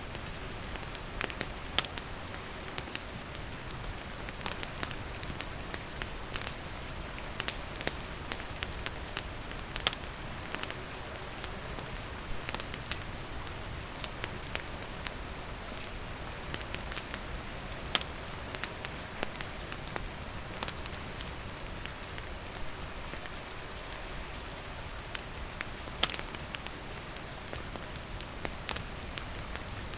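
Steady rain falling, with a campfire's wood crackling in sharp irregular pops over it.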